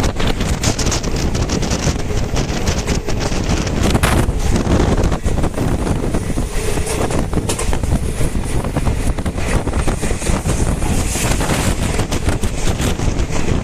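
Express passenger train running at speed: a steady low rumble with a constant rattle of short knocks, and wind buffeting the microphone.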